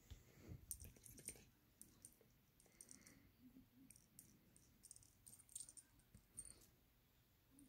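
A small jingle bell on a metal ring giving faint, scattered clicks and jingles as a kitten paws at it, busiest in the first second or so and again past the middle, with soft low rubbing sounds early on.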